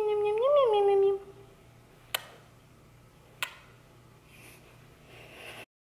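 German Shepherd puppy whining: one long whine that slides down in pitch, lifts briefly and falls away about a second in. It is followed by two sharp clicks.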